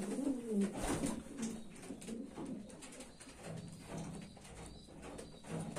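Racing pigeons cooing in the loft: several low, soft coos, one right at the start and more in the second half, with light clicks between them.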